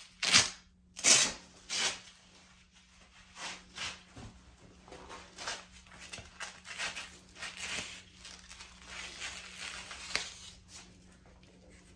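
Three short, loud rips of hook-and-loop (Velcro) being pulled apart as a belt is undone. Then softer rustling and scraping as a nylon belt is drawn out through trouser belt loops.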